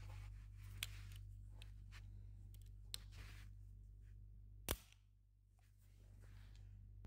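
A few small, sharp clicks from the metal height stops on the fence of a Festool Domino XL DF 700 joiner as they are pressed and set by hand, the loudest near five seconds in, over a faint low hum.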